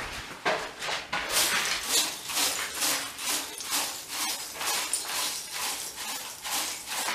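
A broom sweeping dust in quick, even strokes, about two a second.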